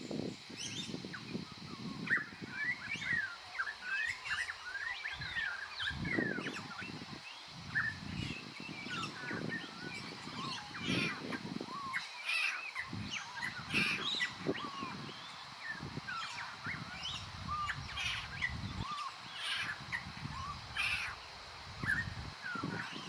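Wild birds calling outdoors: many short chirps and whistles overlapping throughout, with intermittent low rumbles underneath.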